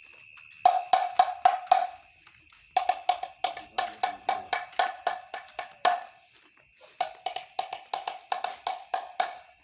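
Bamboo kentongan (slit drum) beaten in quick, even knocks, about five a second, in three runs with short breaks between them: the night-watch patrol's signal.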